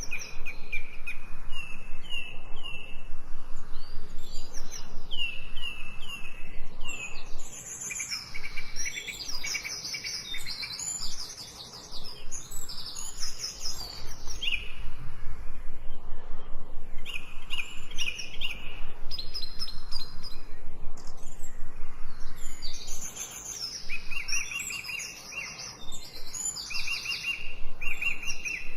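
Birds chirping and singing, a chorus of quick, repeated high notes and short trills, with a couple of quieter lulls.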